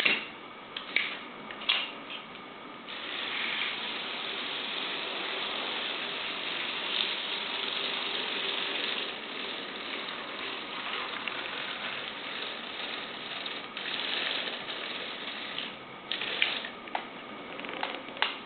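Motors of a remote-controlled Lego Technic tracked robot driving plastic gears and tracks. There are sharp clicks for the first few seconds, then a steady whirring grind until about sixteen seconds in, then more clicks near the end.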